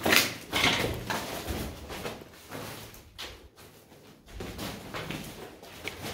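Footsteps scuffing and crunching over rubble and debris on a concrete floor: irregular scrapes and knocks, loudest about the first second.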